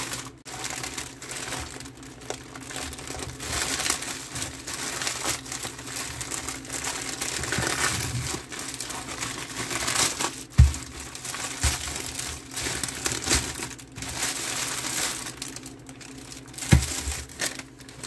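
Plastic poly mailer and the plastic bag inside it crinkling and rustling as they are pulled open by hand, with a few dull thumps, the loudest a little past the middle and near the end.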